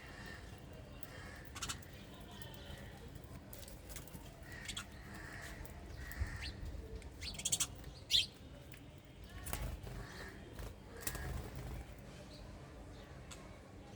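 Wild birds chirping: scattered short, high calls over a low background rumble, with the loudest cluster of chirps a little past the middle.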